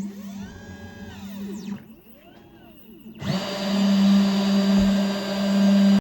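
Genmitsu 3020 PRO MAX V2 CNC router running, its spindle giving a steady hum while the stepper motors whine up and down in pitch as the axes move. About three seconds in, a louder, steady rushing sound joins and runs on. The bit is cutting air, because the work origin was set too high to reach the part.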